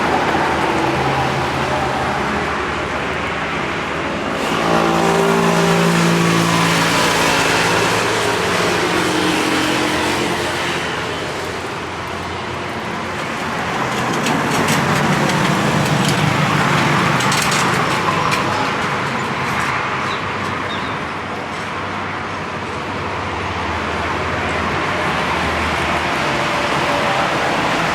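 Road traffic: cars and trucks passing one after another over a continuous roadway hum. One vehicle's engine note falls in pitch as it goes by about five seconds in, and another rougher engine passes loudly about halfway through.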